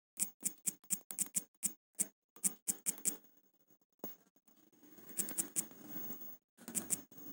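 Quick run of clicks from typing on a smartphone's on-screen keyboard: about a dozen in the first three seconds, then a pause, then a few more clicks in the second half over faint background noise.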